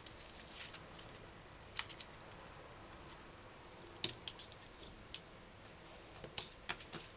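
Dry, papery onion skin crackling and tearing as it is peeled off by hand, heard as a few faint scattered crackles and clicks.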